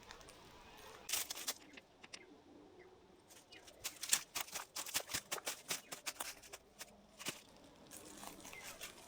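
A series of faint, irregular clicks and crackles, a few about a second in and a denser run from about three and a half seconds to about eight seconds.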